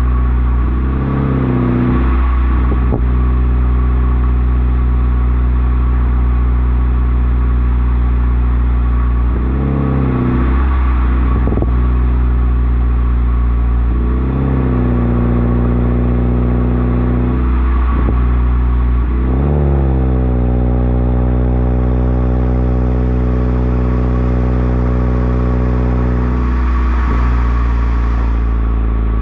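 2013 Toyota Corolla four-cylinder with a header, resonator, secondary-cat delete and Borla axle-back exhaust, running steadily. Its note rises several times as the engine revs up, holds for a few seconds, then falls back.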